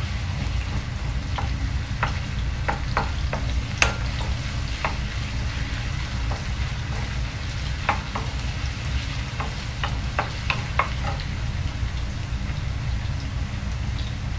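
Julienned ginger sizzling in hot olive oil in a wok, stirred with a wooden spoon that now and then clicks against the pan.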